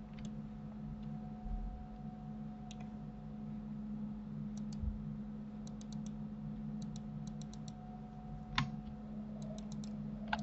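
Computer mouse clicking, sparse single clicks and quick runs of three or four, as edges are picked one by one in 3D modelling software. One click near the two-thirds mark is louder. A steady low hum runs underneath.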